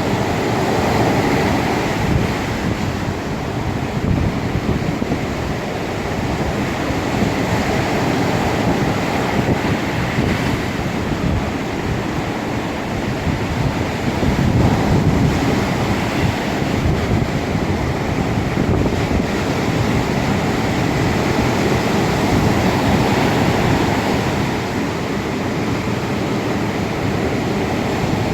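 Ocean waves breaking and washing in steadily, the surf swelling and easing in slow surges, with wind buffeting the microphone.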